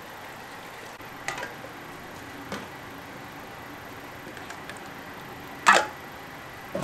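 Food-stall background: a steady hiss with four short sharp clicks or clinks, the loudest about six seconds in.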